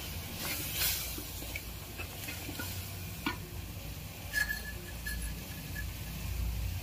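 A wooden spatula stirs a thick tomato-onion masala in an aluminium pressure cooker, with scattered scrapes and taps against the pan. The masala sizzles gently in the oil as the freshly added spice powders fry.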